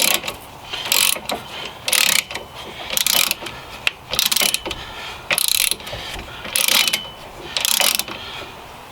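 Socket ratchet on an extension, clicking through about eight short strokes, roughly one a second, as it backs out a freed rear hub assembly mounting bolt.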